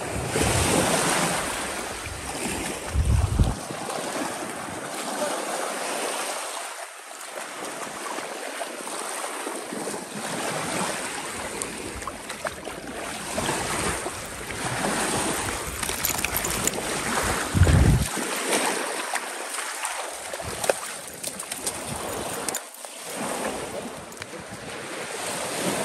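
Small lake waves lapping and washing on a sandy shore, with wind buffeting the microphone in gusts, strongest twice.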